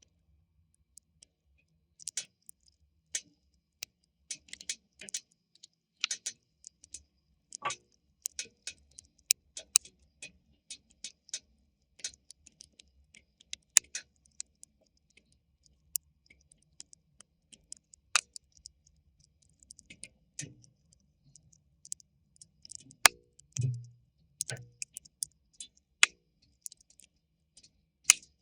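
Wood fire crackling, with irregular sharp pops and snaps from the burning logs, some loud and some faint.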